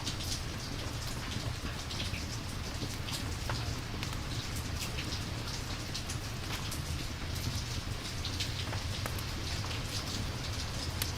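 Steady rain, an even hiss over a low rumble, with many scattered sharp ticks of drops.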